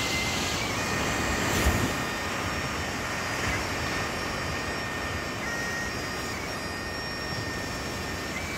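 Bagpipes playing a slow tune at a distance, held notes stepping from one pitch to the next over a steady rushing noise of wind and surf. A brief knock comes about two seconds in.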